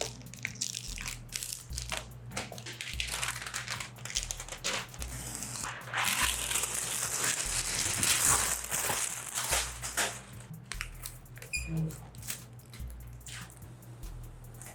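Protective stickers and plastic film being peeled off a new flat-screen TV, crinkling and crackling with many small clicks. A longer, denser stretch of peeling runs from about six to ten seconds in.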